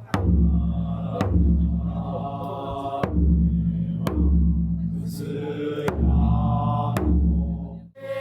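Festival chanting by a group of voices over a large drum struck in pairs, each deep boom ringing for about a second; three such pairs.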